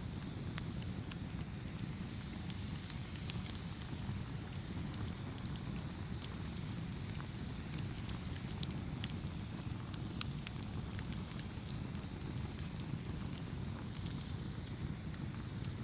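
Wood fire burning: a steady low rumble of flames with frequent irregular sharp crackles and pops.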